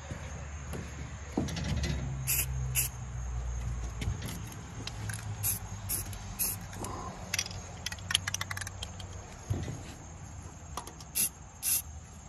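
Several short hissing bursts from an aerosol spray-paint can, putting touch-up paint on freshly welded steel to keep rust off. A low steady hum runs underneath for most of it.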